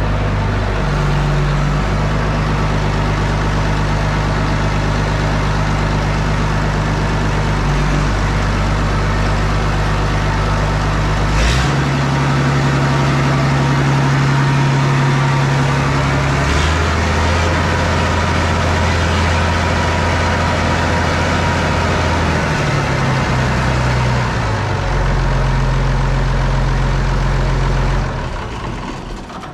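Farm tractor engine running as the tractor is driven, its engine speed stepping up and down several times. There are two brief clunks along the way, and the sound falls away near the end.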